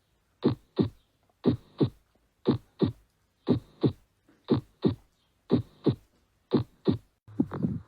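Recorded heart sounds: a steady lub-dub, each beat a pair of short thumps about a third of a second apart, repeating about once a second. Near the end a different, noisier heartbeat recording starts.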